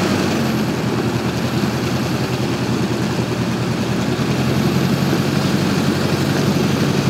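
Stinson 108's Franklin six-cylinder air-cooled engine and propeller, heard from inside the cabin, running steadily at an even pitch while the plane taxis.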